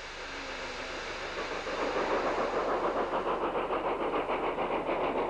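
Steam tank locomotive working as a banker, pushing a train up a steep gradient. A rising hiss of steam gives way, about three seconds in, to fast rhythmic beating.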